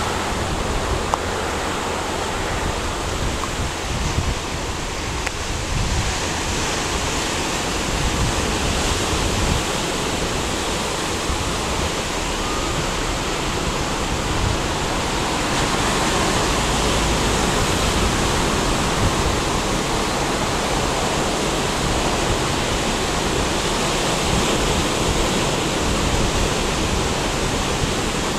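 Steady rush of ocean surf, waves washing around the surfers, with an uneven low rumble underneath.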